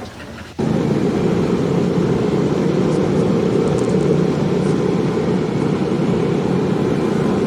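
Loud, steady machinery running, starting abruptly about half a second in.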